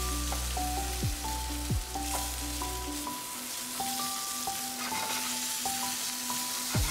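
Sliced vegetables sautéing in olive oil in a frying pan, sizzling steadily while a spatula stirs and turns them against the pan.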